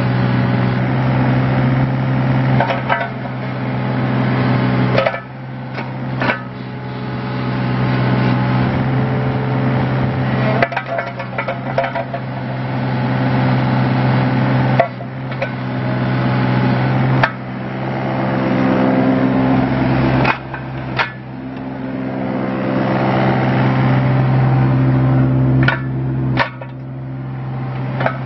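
2012 John Deere 17D mini excavator's diesel engine running steadily under hydraulic load as the boom, arm and bucket are worked. About ten sharp clunks come from the moving arm and bucket, and the machine's sound swells slowly and drops off suddenly several times.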